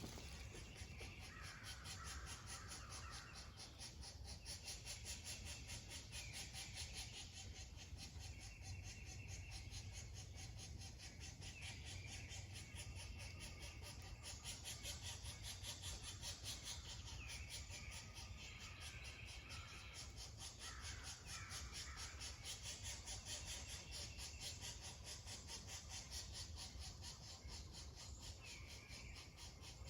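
Faint, raspy, caw-like bird calls in short groups every few seconds, over a steady background hiss.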